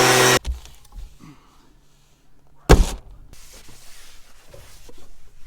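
A blower used to air-clean the combine, running with a steady engine drone, cuts off abruptly just after the start. After a few quiet handling noises comes one loud, sharp thump a little under three seconds in, like a door or panel banging shut.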